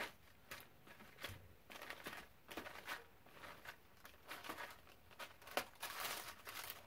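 A cardboard scraper rubbing over watercolor paper and wax paper, pressing a glued page flat: soft, irregular scraping strokes with light paper crinkling and a few small clicks.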